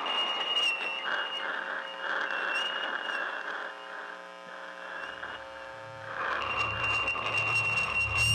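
Experimental electronic music: a thin, high steady tone with brief breaks over a hiss, a buzzing drone in the middle, and a low pulsing bass coming in about five seconds in.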